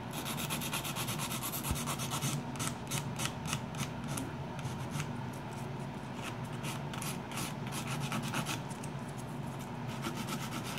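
Hand nail file rasping across a fingernail in quick back-and-forth strokes, about three a second, clearest from about two seconds in. Under it, the steady low hum of a Nova Flair II nail dust collector fan pulling the filing dust away.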